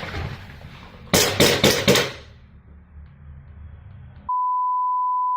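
Four loud, sharp noises in quick succession about a second in. Near the end, a steady, high, single-pitch beep of the kind used as a censor bleep sounds for about a second, blanking out all other sound.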